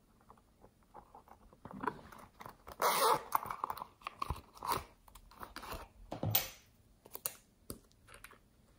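Close handling noises of a small zippered silicone pouch: a rasping zip about three seconds in, then crinkly rustles and a few sharp clicks as it is opened and its contents taken out.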